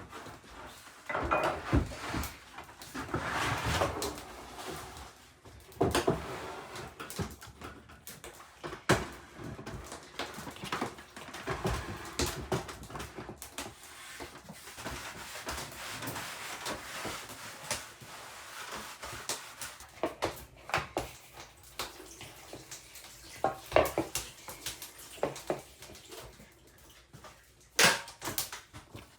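Kitchen handling noises: dishes, utensils and a wooden board knocking and clinking at irregular intervals, with soft scraping and rubbing between the knocks. A sharper knock comes near the end.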